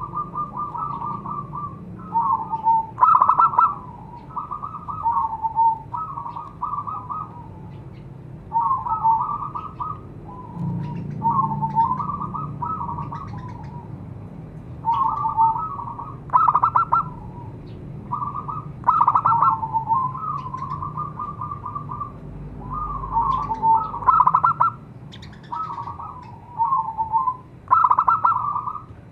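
Zebra dove (perkutut) cooing its rolling, staccato song, phrase after phrase with short pauses between, some phrases louder than the rest.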